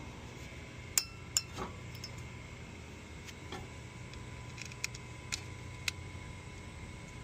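Sharp metallic clinks of hand tools and small metal parts being handled during brake work, about seven scattered clicks with the two loudest about a second in, over a steady low hum.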